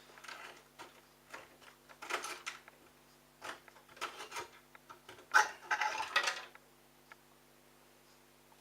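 Intermittent clatter and splashing: water spilling from the opened pump filter of a Bosch washing machine into a shallow pan while the filter is handled, with a steady low hum underneath.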